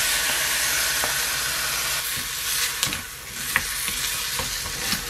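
Chopped tomato poured into hot oil with sautéed garlic and onion in a stainless steel pot, sizzling steadily, then dying down about two seconds in. A wooden spoon then stirs the mixture, with scattered light knocks against the pot.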